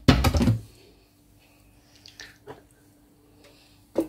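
A wooden spoon scraping and knocking against a stone-coated pot as lumps of melting butter and desi ghee are stirred: one loud scrape in the first half-second, then a few faint knocks and a sharp click near the end, over a faint low hum.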